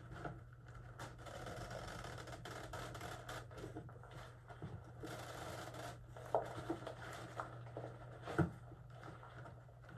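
Quiet rubbing and scraping of handling as a fastening is pulled tight around the animatronic's bowl, with a few light knocks, the loudest about six and eight seconds in, over a faint steady hum.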